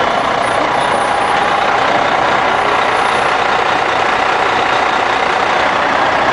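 Steady, loud drone of a heavy vehicle's engine idling close by, unchanging throughout.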